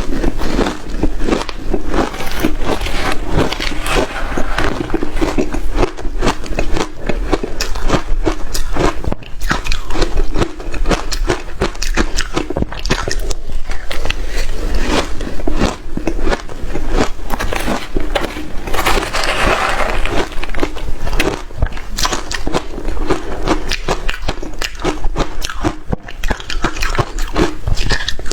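Close-up crunching and chewing of hard shaved ice, a dense, continuous run of crisp cracks and crunches.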